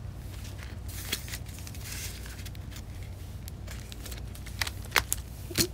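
Paper banknotes rustling faintly as they are slid into a clear plastic binder envelope and handled, with a few sharp clicks near the end.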